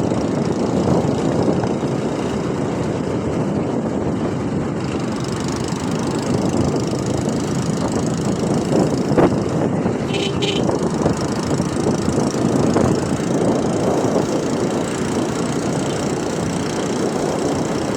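Steady engine and road noise of traffic. There is a short click about nine seconds in and a brief high-pitched beep just after ten seconds.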